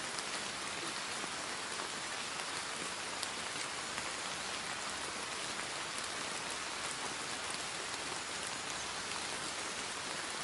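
Steady rain: an even hiss of falling rain with scattered single drop ticks, unchanging throughout.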